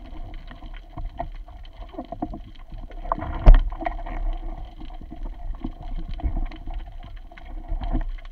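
Muffled underwater water noise on a speargun-mounted camera while a speared fish is hauled in by its line, with scattered small clicks and knocks of gear against the gun. One loud knock comes about three and a half seconds in.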